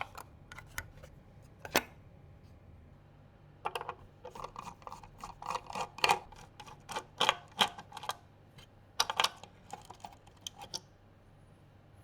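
An irregular run of light clicks and taps, hard plastic and metal PC parts being handled. It starts with a single click, then goes quick and dense for several seconds before stopping near the end.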